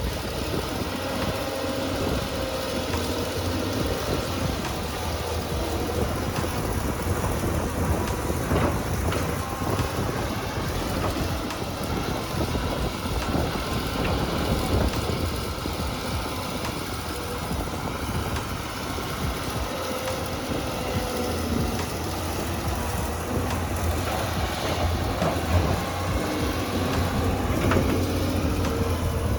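A heavy machine's engine running steadily, with a constant deep rumble under a rushing mechanical noise.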